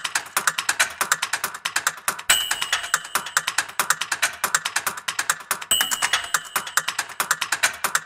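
Rapid typewriter-style key clicks, about eight to ten a second, with a short high ring about two seconds in and again near six seconds. It is a typing sound effect over the title card.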